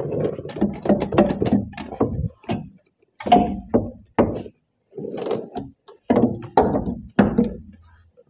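Irregular clunks, knocks and rattles of metal tools and parts being handled under the truck while the old track bar's bolts are out, coming in short bursts with brief pauses between.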